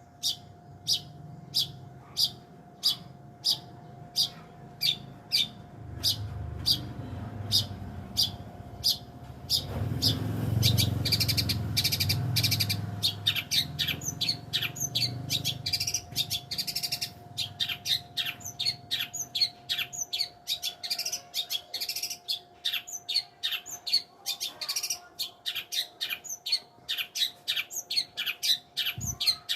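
Long-tailed shrike (cendet) singing: sharp high chirps about one or two a second at first, growing faster and more varied in the second half. A steady faint hum runs underneath, with a low rumble in the middle.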